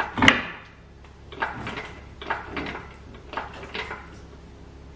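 Engine crane lifting the engine out of an Audi R8, with clunks and knocks from the crane and the engine shifting. One sharp knock comes just after the start, then pairs of shorter clunks about once a second.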